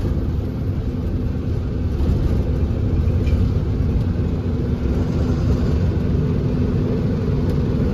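Lorry's engine and road rumble while driving, a steady low drone with a faint constant hum, heard from inside the cab.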